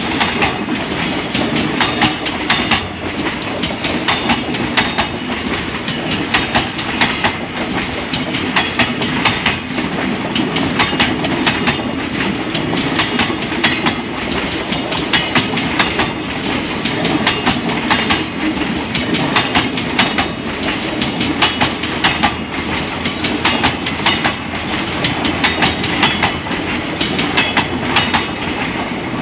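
Freight train wagons rolling past, the wheels clacking over rail joints in quick clusters of beats that repeat about once a second over a steady rumble.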